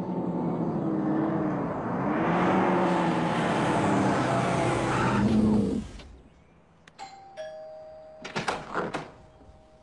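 Acura NSX V6 engine revving as the car drives up, its pitch rising and falling, cutting off about six seconds in. Then a two-tone ding-dong doorbell chime rings, with a few sharp knocks during the lingering second tone.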